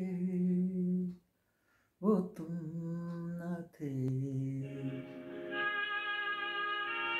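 A man's voice holding long sung notes, with a short break about a second in and a drop to a lower note near the middle. About five seconds in, a sustained instrumental backing enters and carries on under him.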